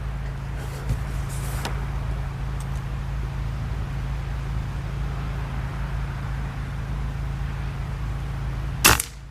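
Steady low rumble throughout, with one sharp, loud crack near the end: an air rifle firing a pellet.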